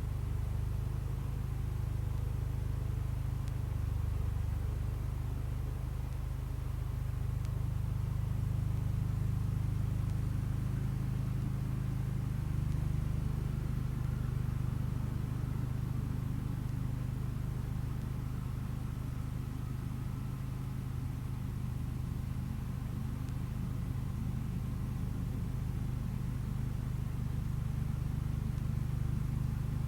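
1975 Case 224 garden tractor engine running steadily while driving a snow thrower, its low hum swelling and easing slightly as the load changes.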